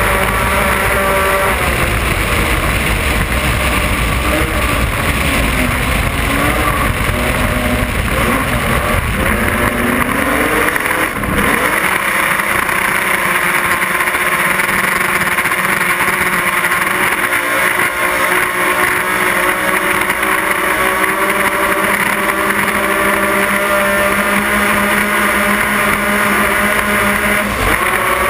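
Offshore racing powerboat engines running flat out, a steady engine drone over a heavy rush of wind and water spray. About eleven seconds in, the engine pitch wavers and briefly dips with a sharp knock, then settles steady again.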